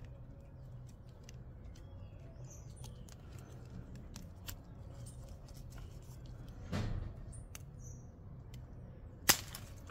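Quiet handling of a croton stem cutting being trimmed: a short rustle about seven seconds in and one sharp snip near the end, with a few faint bird chirps in the background.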